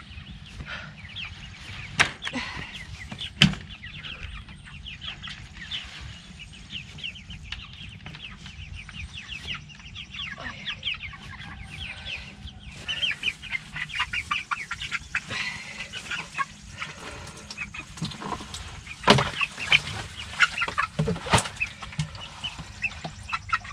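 A flock of 4-week-old meat chickens peeping and cheeping without a break, busier in the second half. A few sharp knocks stand out over them.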